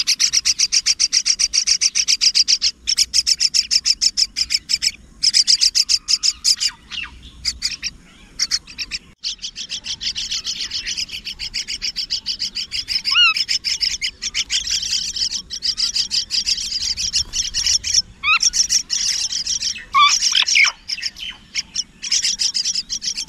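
Myna chicks calling from the nest: long runs of rapid, harsh chirping, breaking off briefly about eight seconds in, with a few short sliding whistled notes in the second half.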